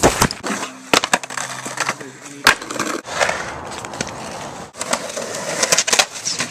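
Skateboard on concrete: wheels rolling with a rough hiss, broken by sharp board clacks and slams, with hard impacts at the start, about a second in and about two and a half seconds in.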